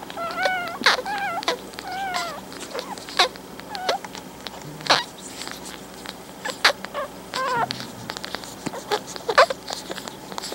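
Newborn pug puppies squeaking and whimpering while nursing: short high, wavering cries, mostly in the first couple of seconds and again about three-quarters of the way through, over frequent small wet clicks from suckling.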